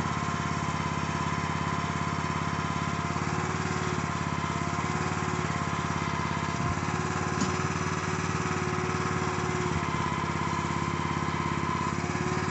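Small gasoline engine of a Harbor Freight backhoe running steadily at constant speed, with a couple of faint knocks partway through.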